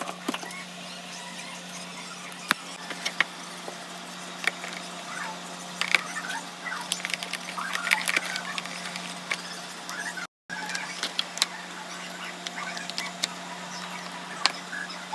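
Items being handled and arranged in a plastic desk organiser: scattered clicks, taps and short scraping squeaks as things are picked up and set down, over a steady low hum. The sound drops out briefly about ten seconds in.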